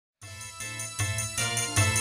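A live band playing a song's instrumental intro. It starts just after the beginning and grows louder, with a deep bass under notes struck about two to three times a second.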